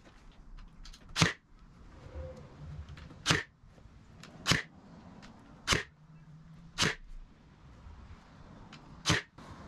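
Ryobi cordless brad nailer firing nails into jarrah hardwood: six sharp shots, one to two seconds apart.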